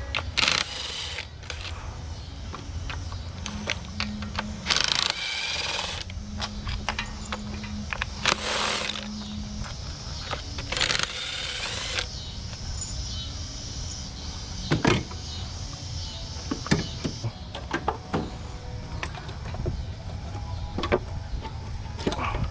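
Work on a Mazda Miata engine to take off its valve cover: a small powered tool whirs in short runs, with sharp metal clicks and clanks from tools and parts between them.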